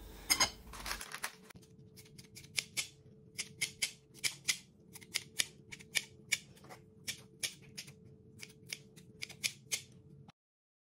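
Kitchen scissors snipping fresh chives, a quick run of crisp snips at about two a second.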